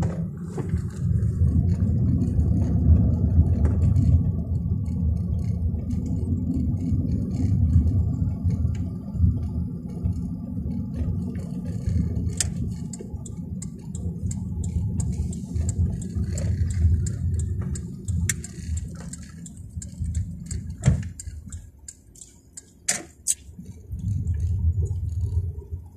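Car driving, heard from inside the cabin: a steady low rumble of engine and road noise that drops away briefly near the end, with a few sharp clicks.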